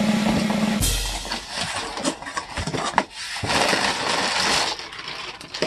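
Cardboard box flaps being pulled open and plastic bubble-pillow packing crinkling and rustling as it is handled, with irregular sharp crackles. A steady low hum cuts off suddenly about a second in.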